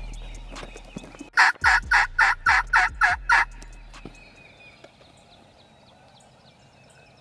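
Turkey yelps: a loud series of about eight evenly spaced notes, roughly four a second, lasting about two seconds.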